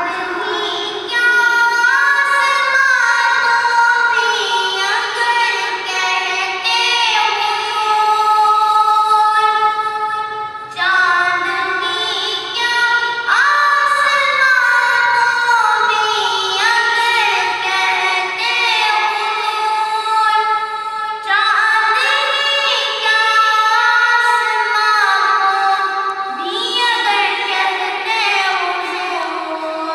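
A boy singing a naat, an Urdu devotional poem, unaccompanied, his high voice holding long notes that slide between pitches.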